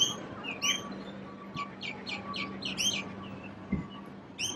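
Small birds chirping in quick runs of short, high chirps over a faint steady hum.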